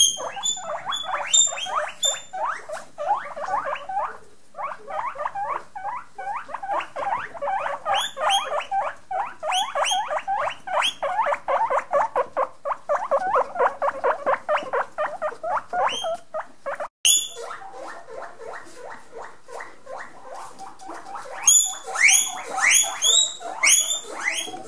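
Guinea pigs wheeking: rapid strings of high squeaks, then louder, longer rising whistles near the end. This is the call guinea pigs make to ask their humans for food.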